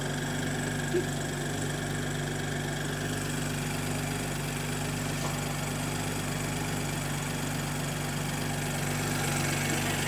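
BMW M340i's turbocharged 3.0-litre B58 inline-six idling steadily, breathing through a newly fitted do88 carbon-fibre cold-air intake.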